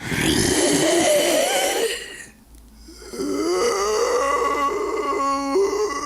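Zombie moans voiced by a person for a classic zombie sound effect: two long, raspy, wavering groans with a short pause between them. The second ends in a throaty rattle.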